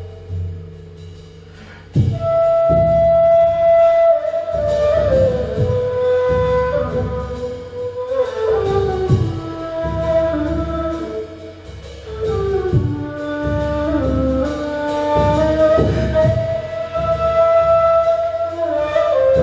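Ney (end-blown reed flute) playing a slow melody of held notes that glide from one pitch to the next. About two seconds in, a drum struck with a mallet joins with a steady low beat.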